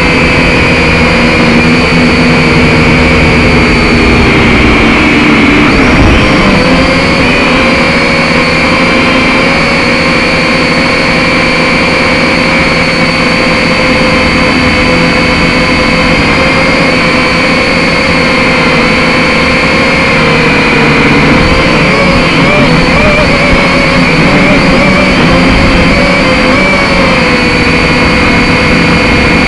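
Quadcopter drone's motors and propellers running with a loud, steady whine. The pitch dips and wavers briefly about six seconds in and again about twenty-one seconds in.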